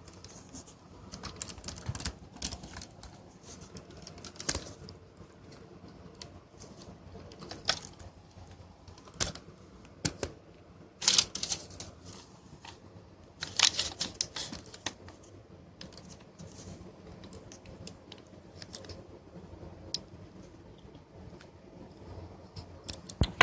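Irregular clicks and taps of typing on a computer keyboard, with some louder, sharper clicks in between.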